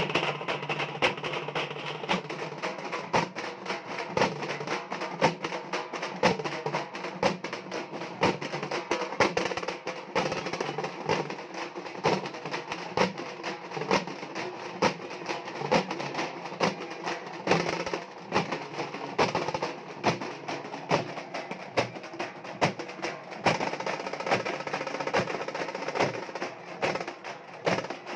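A group of halgi frame drums beaten with sticks, playing a fast, dense rhythm of sharp, crisp strikes.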